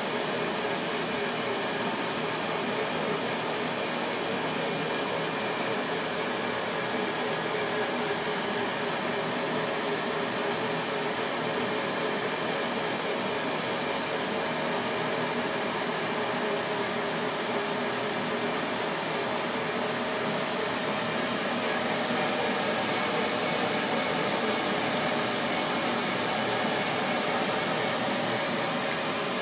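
Epilog Mini laser engraver running while it engraves a photo into black marble: a steady whir of fans and moving air with a few faint steady tones.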